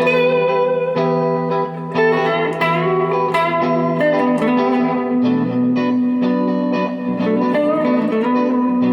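Electric guitar played through a 1977 Fender Bassman 70 tube amplifier: a jam of plucked notes and chords that ring on and overlap.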